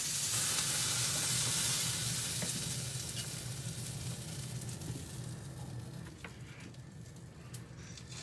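Olive-oil and herb battuto sizzling hard in a hot black pan of browned vegetable slices. It is loudest for the first couple of seconds, then slowly dies down, with a few faint ticks and clicks.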